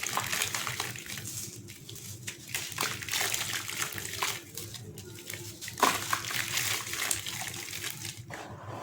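Lumps of gritty sand-and-cement mix crumbling in water: a crackling, fizzing hiss with many small gritty clicks and splashes that comes in surges, with one sharper crack just before six seconds. The crackle dies down near the end.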